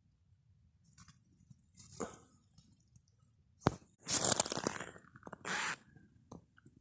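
Boots crunching in hard frozen snow: a click, then a couple of crunching steps near the middle and a few small clicks.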